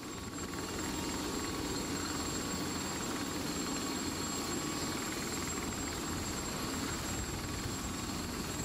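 Turbine-powered Composite FX XE light helicopter hover-taxiing at low speed, the rotor running steadily with a thin, steady high whine above it.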